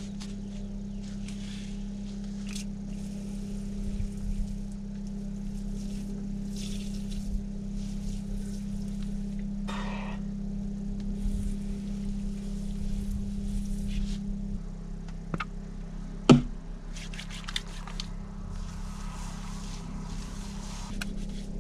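Water spraying and splashing from a small hand-pressurised portable camping shower while a person rinses off, in uneven spells of hiss. A steady low hum runs underneath and drops away a little past halfway. A single sharp click comes about three-quarters of the way in.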